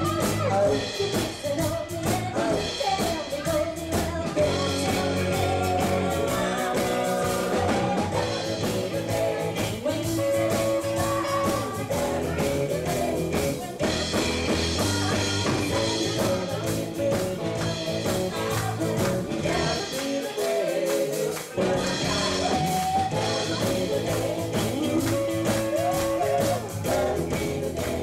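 Live country-rock cover band playing, a woman singing lead into a hand-held microphone over guitar and a full band. The bass drops out for a moment about twenty seconds in.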